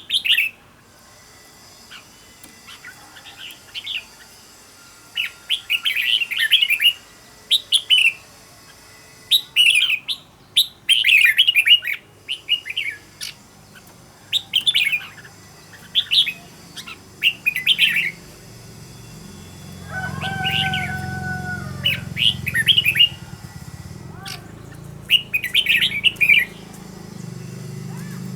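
Red-whiskered bulbul singing short, chirpy warbling phrases, one every second or two. A low hum builds from about halfway, with a brief steady drone around two-thirds of the way in.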